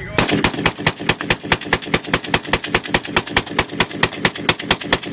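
A rifle firing a fast, even string of shots, about eight a second, starting a moment in and keeping on without a break.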